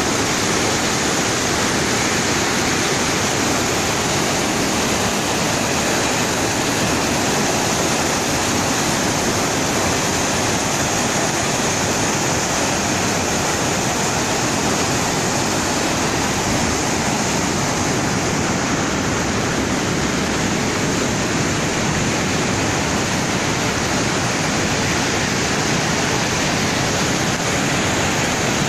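Muddy floodwater of a swollen river rushing steadily and loudly past a concrete bridge wall.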